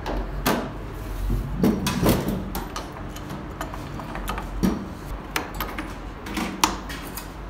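Small steel parts of a diesel injection pump clicking and clinking irregularly as they are handled and fitted onto the pump body, over a low steady hum.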